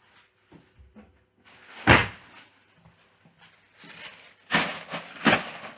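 Three sharp knocks or bangs, about two seconds in and twice near the end, with rustling handling noise between them, as packaging is moved about.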